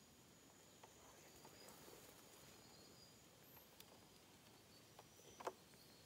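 Near silence: faint evening forest ambience with a thin, steady, high-pitched insect trill that stops a little past halfway, and a few soft clicks, the clearest one near the end.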